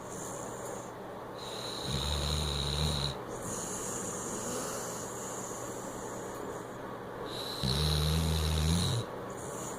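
Overweight Weimaraner snoring: two long, low snores about six seconds apart, each with a thin high whistle alongside.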